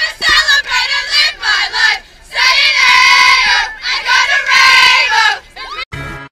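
A crowd of schoolgirls chanting a cheer together, loud shouted phrases with long held notes. Music with a beat cuts in just before the end.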